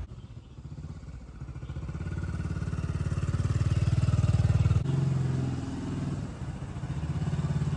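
Motorbike engine running, growing louder over the first few seconds. Its note changes abruptly about five seconds in, then it runs on.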